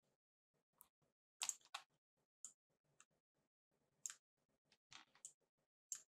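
Faint, irregular clicking of a computer mouse: about ten short, sharp clicks, some coming in quick pairs.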